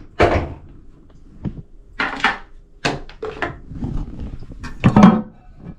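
A series of short knocks and clunks, about half a dozen spread over several seconds, the loudest near the end.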